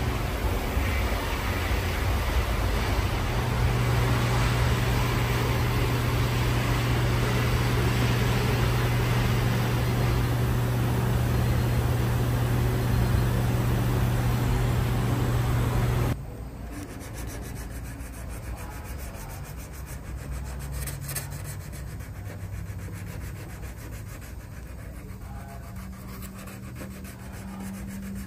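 Power sander grinding down the edge of a carbon fiber hood: a steady motor hum under a loud rough hiss, which cuts off abruptly about sixteen seconds in. After that, quieter hand rubbing and scraping on the hood.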